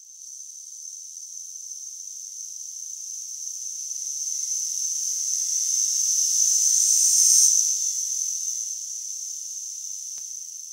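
Knock-sensor signal from a methanol-injected Subaru EJ20 engine, heard through a narrow band-pass filter centred near 6.2 kHz. It is a steady high-pitched hiss that grows louder as the engine pulls up through the revs, peaks about seven seconds in, then fades as the revs drop. The loudest, noisiest stretch comes near redline, where the software flags detonation.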